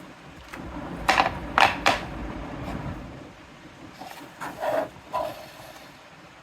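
Objects being handled: three sharp knocks and clacks about a second in over a low rumble, then a few softer clacks and rustles near the end.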